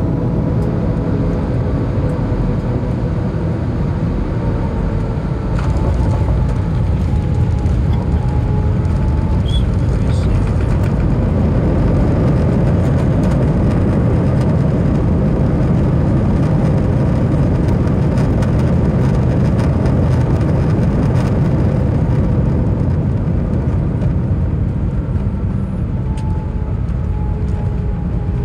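Cabin noise of an Airbus A320 landing: a loud, steady low rumble of engines and wheels on the runway that grows louder about five seconds in, as it touches down and rolls out, and eases off near the end as the aircraft slows.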